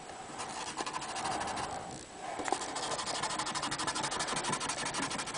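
Paintbrush scrubbing oil paint back and forth on paper: a steady dense scratching with a brief pause about two seconds in.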